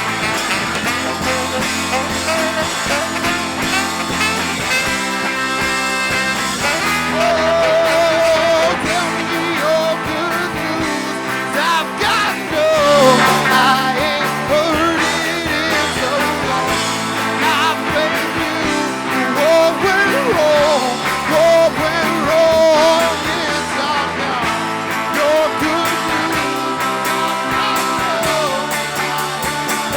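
Live rock band playing an instrumental passage between verses, with a lead line that bends and wavers in pitch over the full band.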